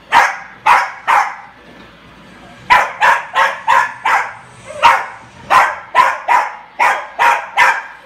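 Small dog barking sharply and repeatedly at a Roomba robot vacuum: three quick barks, a short pause, then a fast string of about a dozen more yaps.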